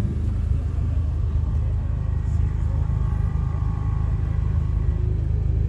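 Deep, steady bass rumble from a car's trunk-mounted subwoofers, played loud and cut off sharply above the low bass.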